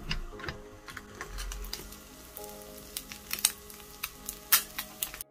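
Flip-style electric waffle maker being rotated with a clunk, then a run of sharp clicks and taps from its hinged lid and housing, loudest near the end, over a faint sizzle of egg cooking on the plates. Soft background music plays underneath.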